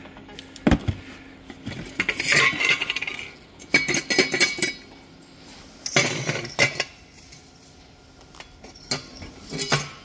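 Broken pieces of the ceramic core rattling and clinking inside a removed catalytic converter as it is moved and shaken, in several short bursts. The rattle is the sign of the converter's core having separated and crumbled apart.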